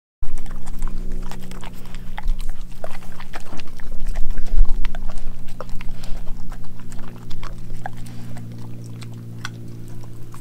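A dog chewing and crunching raw chicken, with a rapid, irregular run of wet crunches and snaps, heaviest around the middle. A steady low hum runs underneath.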